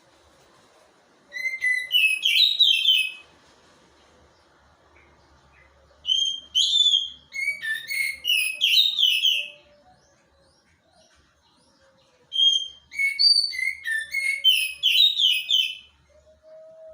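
A songbird singing in three bursts a few seconds apart, each a quick run of high whistled notes.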